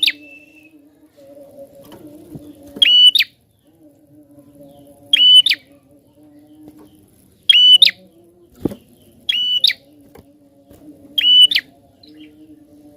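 Prinia (prenjak) calling: five short, loud, sharp chirps, about two seconds apart.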